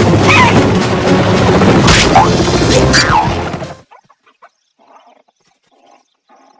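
A cartoon slapstick soundtrack: a cartoon bird's panicked yelps over loud music, with two sharp crashes about two and three seconds in. It all cuts off suddenly a little past halfway, leaving only faint, soft sounds.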